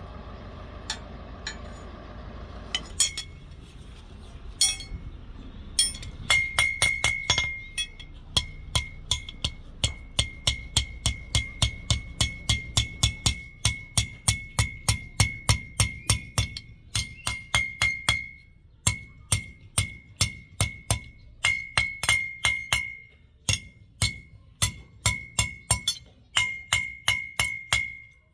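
A hammer striking steel: after a few scattered blows, a long run of quick strikes, about three a second with short pauses, each with a brief high metallic ring.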